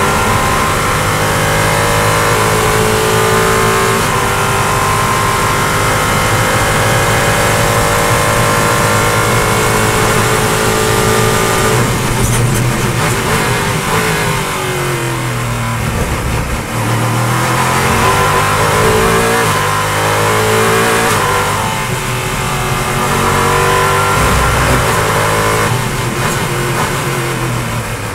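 LMP3 prototype's Nissan 5.0-litre V8 heard onboard at racing speed. It runs high and steady under full throttle, then drops in pitch through downshifts under braking from about halfway through, and climbs again as it accelerates through the gears.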